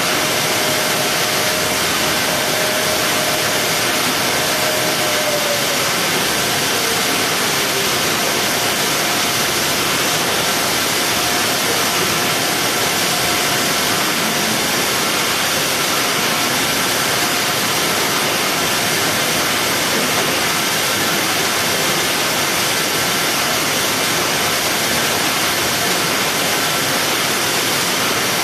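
Steady loud hiss-like factory machinery noise around a Fuji box-palletizing robot at work. A faint motor whine drops in pitch about five seconds in.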